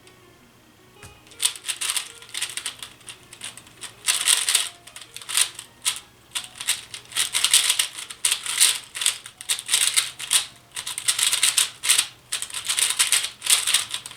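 A 3x3 speedcube being turned fast during a timed solve: rapid plastic clicking and rattling in bursts with short pauses, starting about a second in. Faint background music runs underneath.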